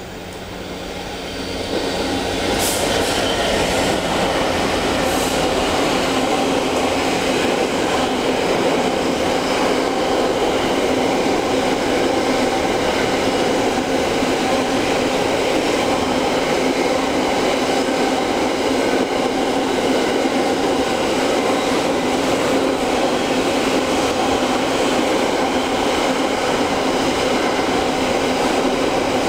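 A Class 66 diesel locomotive hauling an intermodal container train through a station at speed: the noise swells over the first two seconds as the train arrives. After that the container wagons pass in one long, steady run of wheel-and-rail noise, with a couple of sharp clicks a few seconds in.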